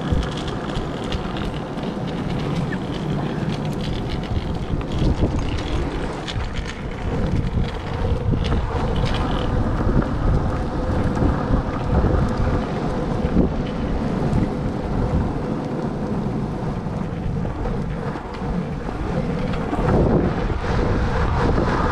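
Longboard wheels rolling over pavement, a steady rumble with wind buffeting the microphone.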